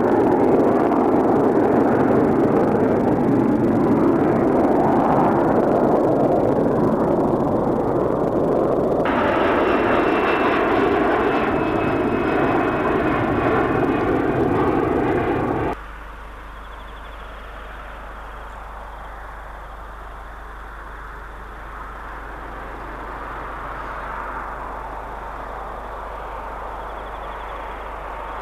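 Boeing 727 jet engines (Pratt & Whitney JT8D turbofans) at climb power, a loud steady rush with a high whine joining about nine seconds in. A little past halfway it cuts off suddenly, and fainter noise from another 727 follows, slowly growing louder as the jet comes closer.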